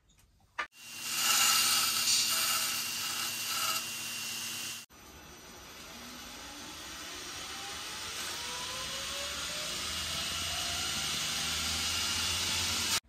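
Electric belt grinder switched on with a click and running, a loud steady rushing noise with a few steady whines. After a sudden cut comes a steady hissing, rushing noise that slowly grows louder, with faint whines rising in pitch.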